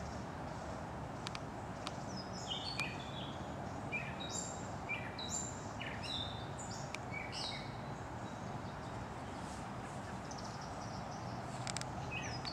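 A songbird singing a run of short, falling notes from about two seconds in until about eight seconds in, over a steady background noise.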